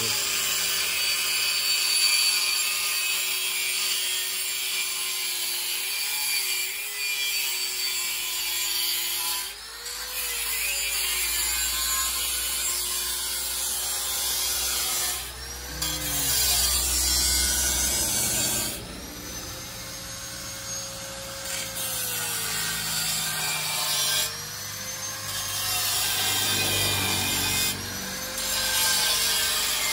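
Electric angle grinder cutting steel pipe: a steady motor whine with a gritty cutting hiss. The pitch sags while the disc bites and rises again each time it eases off, about five times, with a few short breaks.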